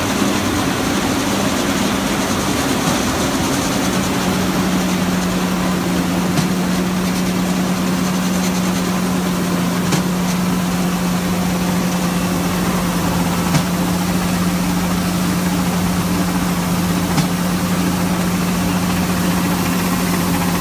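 A 13-inch grain auger and the engine driving it running steadily with a constant low hum, while canola seed pours from the trailer's hopper gate into the drive-over hopper. A light click repeats about every three and a half seconds.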